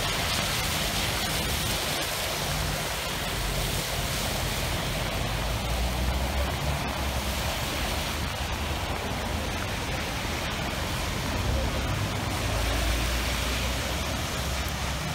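Heavy rain pouring down and floodwater rushing through a flooded street: a steady rushing noise, with a deep rumble underneath that swells and fades.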